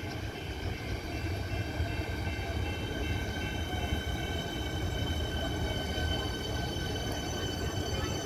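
Siemens Nexas electric multiple unit pulling into the platform and slowing. Its traction equipment whines in several steady high tones that sink slightly in pitch near the end, over the low rumble of the wheels on the track.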